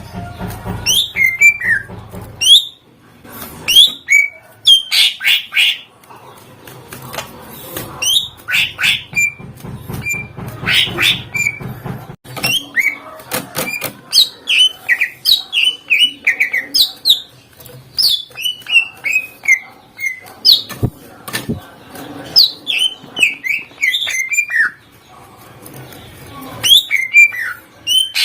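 Greater green leafbird (cucak ijo) singing continuously in loud, rapid runs of short, sharp, falling whistled notes and chatters, with mimicked calls of other birds mixed into the song.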